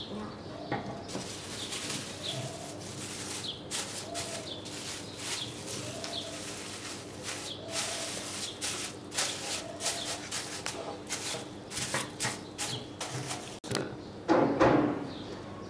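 Thin plastic bag crinkling and rustling in quick, irregular crackles as it is pulled over and pressed around a rack of marinated ribs. Near the end there is one louder scrape or clatter as a metal baking tray is put down.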